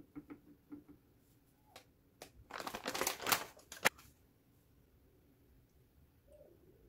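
Hands working dry food: a few light clicks, then a burst of crisp crackling and clicking about two and a half seconds in that lasts a second and a half.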